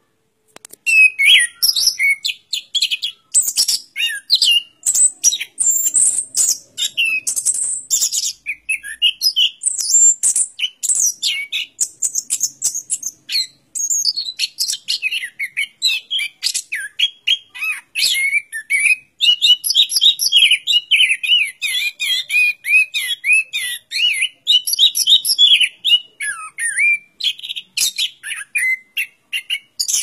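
Chestnut-capped thrush (anis kembang) singing a long, unbroken song of quick, varied high whistles, chatters and glides, starting about a second in.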